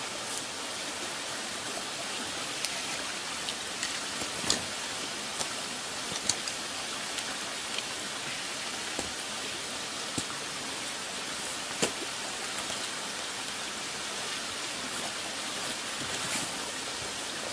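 Small spring-fed mountain stream running over rocks and plunge pools, a steady water hiss, with scattered light knocks and clicks from wading gear being handled.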